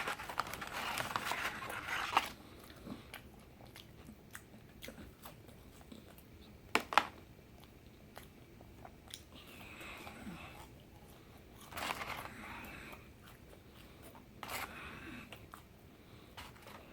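A man chewing and biting food close to the microphone, in separate bursts, with a sharp click about seven seconds in.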